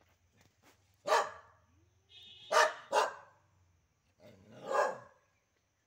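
A dog barking four times: one bark about a second in, two quick barks close together near the middle, and a longer bark near the end.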